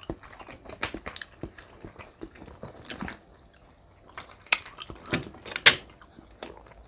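Close-miked chewing and wet mouth clicks of someone eating grilled giant river prawn, with a string of short sharp clicks; the loudest come about four and a half and five and a half seconds in.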